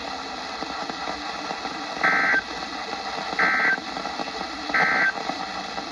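Emergency Alert System end-of-message code heard over broadcast radio: three short two-tone digital data bursts, each about a third of a second, evenly spaced about 1.4 s apart over a steady hiss. They mark the end of the alert.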